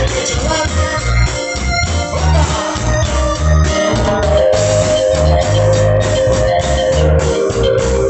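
Band music with an electronic organ or keyboard playing held melodic notes over a pulsing bass line and a steady drum beat.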